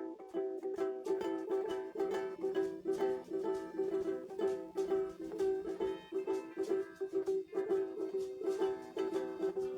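Guitar strummed in a steady, quick rhythm, chords ringing between the strokes, with no singing.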